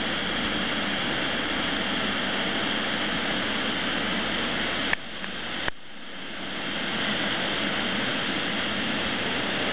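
Lancework set piece of coloured lances spelling out letters, burning with a steady loud hiss. About five seconds in the sound drops away with two clicks, then the hiss builds back up.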